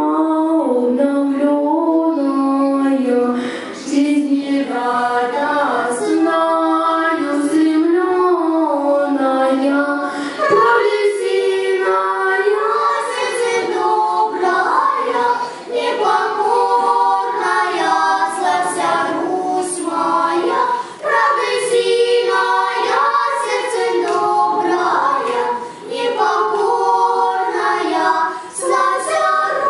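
Girls' children's choir singing unaccompanied. For about the first ten seconds one girl's voice into a microphone stands out; after that the whole group sings together.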